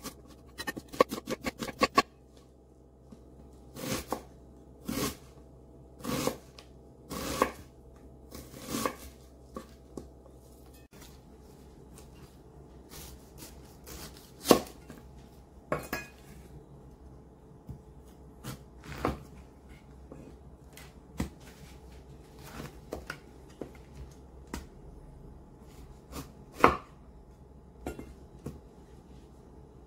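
Chef's knife chopping an onion on a wooden cutting board: a fast run of knocks for the first two seconds, then slower single chops about a second apart. Later the knife slices through a peeled pineapple, each cut ending in an irregular knock of the blade on the board, with one loud knock near the end.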